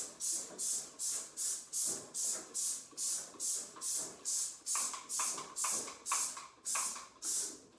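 Trigger spray bottle of cleaner squirted over and over, a short hiss about three times a second.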